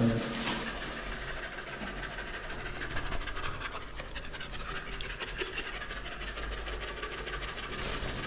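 A beagle panting with its tongue out, over a low steady hum.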